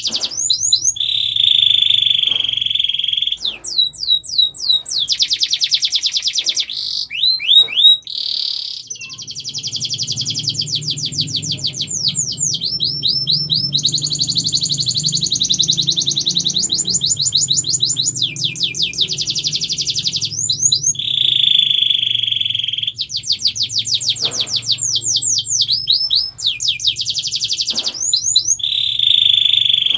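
Domestic canary singing a continuous song of fast trills and rolls, each phrase a rapid run of repeated high notes that switches to a new trill every second or two. A steady low hum runs underneath, strongest in the middle.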